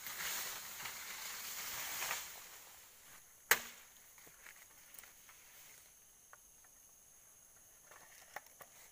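Rustling of leaves and undergrowth for about two seconds, then one sharp machete chop into bamboo about three and a half seconds in, followed by a few faint snaps and ticks.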